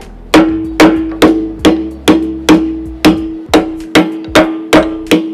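A hammer striking a punch about a dozen times at a steady two to three blows a second, each blow ringing with the same short note. The punch is driving the retaining pin out through a CAT-style excavator bucket tooth and its retainer.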